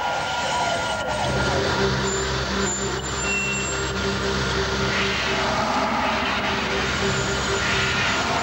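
Synthetic soundtrack of a TV channel holding screen: steady held tones over a low note that pulses on and off, with hiss throughout.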